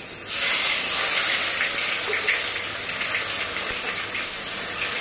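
Chopped tomatoes dropped into hot oil in a wok, sizzling with light crackling. The sizzle starts suddenly just after the start and eases a little as it goes on.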